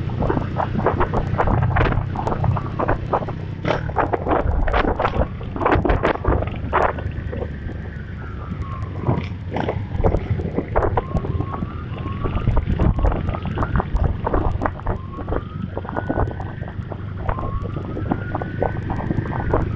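A siren wailing in slow rising and falling sweeps, with some short quick yelps, from about five seconds in, over a steady engine rumble and heavy wind buffeting on the microphone.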